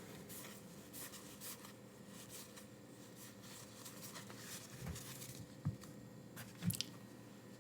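Faint rustling and sliding of trading cards being flipped through by hand, with two light taps about a second apart near the end.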